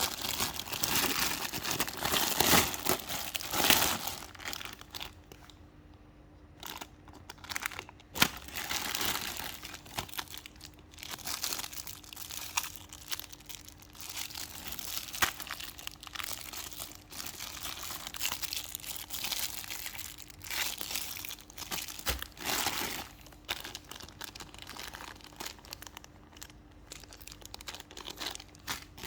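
Plastic parcel packaging being crinkled and rustled by hand in irregular bursts, with a quieter spell a few seconds in.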